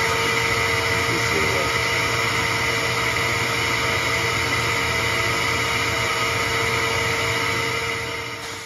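1-gallon wet/dry shop vac running steadily with a constant whine, sucking through a VPI vacuum wand drawn across a wet spinning record to pull up the cleaning fluid. The sound fades out near the end.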